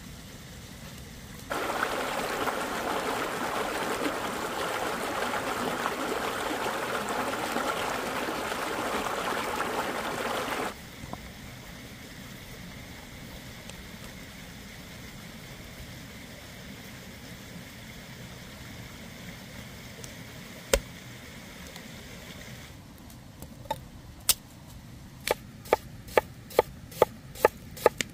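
A stream's water rushes steadily for about nine seconds, starting and stopping abruptly, then sits low in the background. Near the end a knife slices an onion on a wooden board in sharp cuts about two or three a second.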